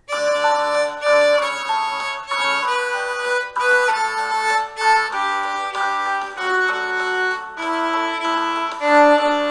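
Viola bowing a descending D major scale from high D down to low D. Each note is held long and then repeated short, in a dotted-quarter-and-eighth rhythm.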